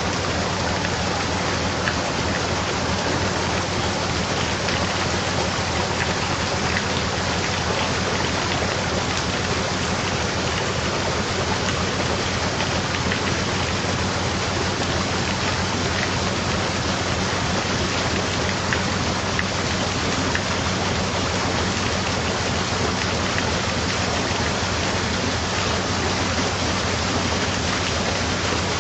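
Steady rushing of water through the paddles of a canal lock, with a low steady hum underneath.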